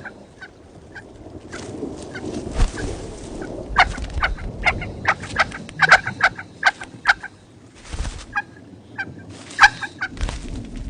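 Nestling birds begging: an irregular run of short, sharp cheeps, thickest in the middle, over a low steady background noise.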